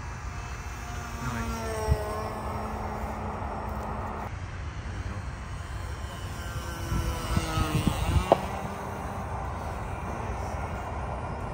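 Small O.S. 15 LA two-stroke glow engine of a balsa RC plane, buzzing at about half throttle as the plane flies past, its pitch dropping twice as it passes by. A low rumble runs underneath, with a few low thumps near the eight-second mark.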